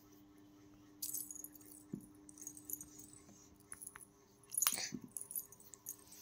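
Faint small clicks and clinks of a toddler's hands fiddling with a small capped container, her metal bangle touching it, with a brief louder rustle about three-quarters of the way through. A faint steady hum runs underneath.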